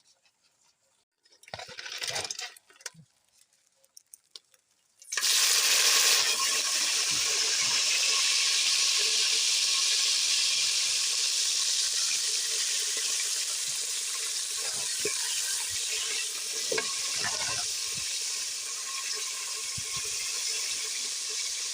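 A batch of insects dropped into hot vegetable oil, which bursts into a loud sizzle about five seconds in and keeps frying steadily, easing slowly. A few short clinks and rustles of handling come first.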